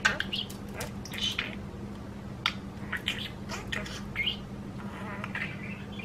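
Budgerigar chattering quietly: scattered short, high chirps and clicks.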